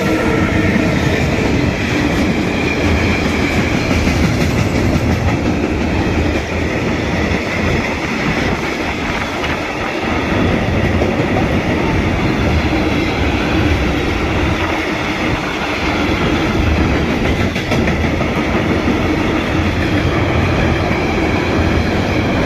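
Freight train of tank wagons behind a DB Cargo class 189 electric locomotive passing close by: loud, steady rolling of steel wheels on the rails with a clickety-clack over the rail joints.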